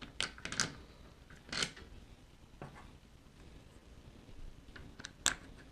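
Motor mount spacers clicking as they are slid by hand onto carriage bolts: a quick cluster of clicks at the start, another about a second and a half in, and two more near the end.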